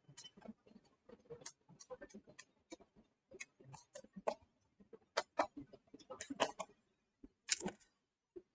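Faint, irregular clicks and taps of a stylus on a tablet screen during handwriting. They are louder and closer together about five to seven seconds in, with one longer, stronger scrape near the end.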